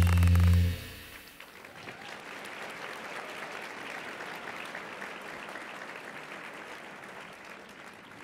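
A music track ends on a held low chord within the first second. Then an audience applauds steadily, slowly fading.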